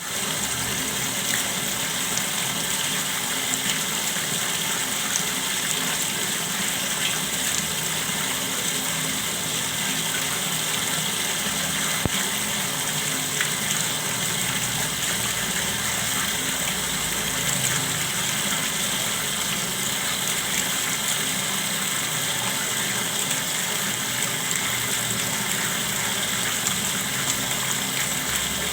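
Clear water flowing steadily, a continuous even rush of running water.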